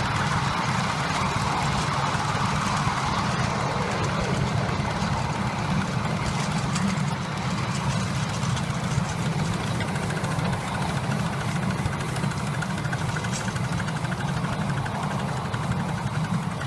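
Miniature steam locomotive and its ride-on train running along the track: a steady rumble of wheels on the rails and the working locomotive, with no break.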